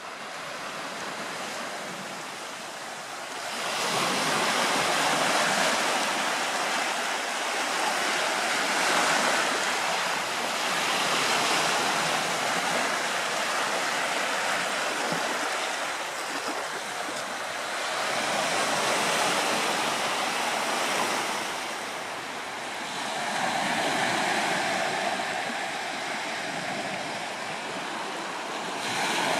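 Small sea waves washing in and breaking on a sandy shore and low rocks, a steady rushing surf. It swells louder about four seconds in, then eases and builds again several times.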